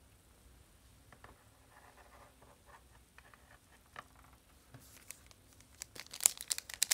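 Light taps and rustles of trading cards being handled, then, about six seconds in, loud crackling plastic crinkling from a card pack wrapper or plastic sleeve being handled.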